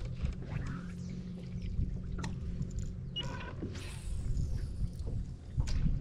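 Boat motor running steadily at low speed, a low even hum, with a few sharp clicks and a brief falling whir about four seconds in.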